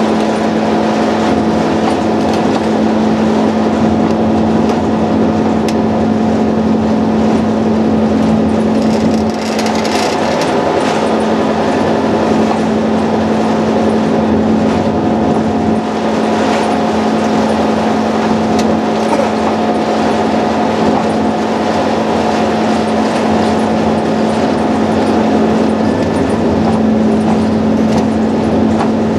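Diesel locomotive running steadily, heard from inside the cab: a constant engine drone with a steady hum over the rumble of the moving train.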